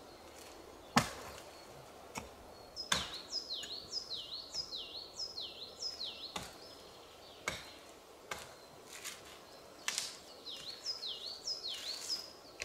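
Axe chopping a dry dead branch: single sharp strikes at irregular intervals, the loudest about a second in. A bird repeats a high note that dips and rises again, about two or three times a second, in two runs.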